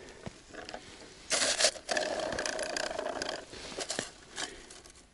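Plastic winter tip-up (zherlitsa) being handled and rigged over an ice hole: a scraping, rattling whir of about two seconds starting about a second and a half in, with small clicks before and after.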